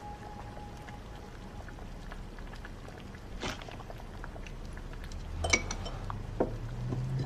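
Hotpot broth simmering at the table, with a few sharp clinks of tableware; the loudest clink comes about five and a half seconds in.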